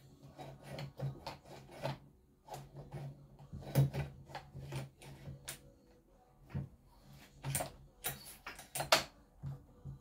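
Plastic chainsaw cover being pushed and worked by hand onto the saw body: a string of irregular clicks, knocks and rubbing of hard plastic on plastic, with the louder knocks about four seconds in and near the end. The plastic is a bit bent, so it does not seat cleanly. A faint steady hum runs underneath.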